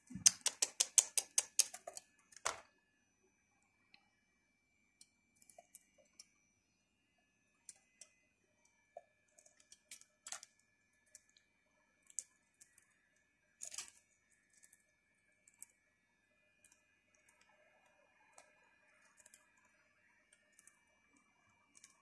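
Light clicks and taps from budgerigars in a wire cage: a fast run of clicks in the first couple of seconds, then scattered single ticks, with a faint steady high tone behind.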